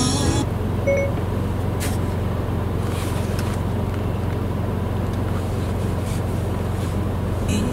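Steady low hum of a car at idle, heard from inside the cabin, after a snatch of music cuts off right at the start.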